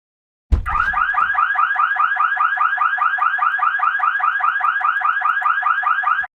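Car alarm siren sounding: a fast electronic warble repeating about six times a second, set off with a thump about half a second in and cutting off suddenly near the end.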